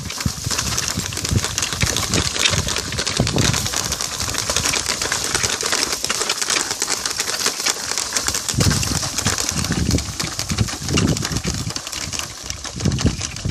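Animal-drawn seed-cum-fertilizer drill clicking and rattling rapidly and steadily as it is pulled, its chain-driven metering rollers turning and feeding seed into the drop tubes. A few duller thuds come in the second half.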